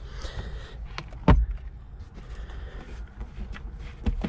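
Plastic center console trim cover being pried and popped off by hand: a brief scraping rustle, a sharp plastic knock about a second in, then a few lighter clicks near the end.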